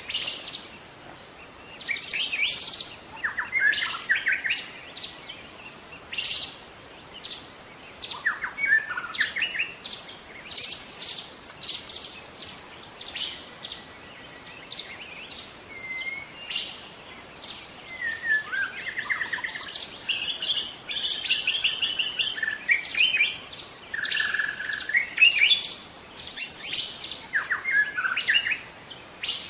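White-rumped shama singing: a varied run of clear whistles, rapid chips and slurred notes, delivered in short bursts with brief pauses between phrases.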